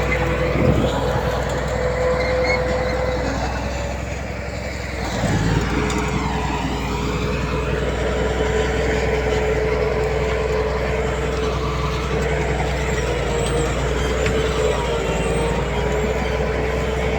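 Diesel engine of heavy earthmoving machinery running steadily under load, with a steady high whine over the engine note. The engine eases off about four seconds in and picks up again a second later.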